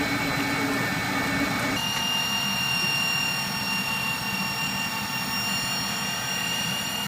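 Inline high-shear mixer running steadily with a constant whine over machine noise. About two seconds in, the whine abruptly shifts to a higher pitch.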